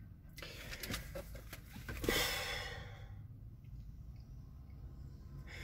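A man sighs: one long breathy exhale about two seconds in, over a low steady hum.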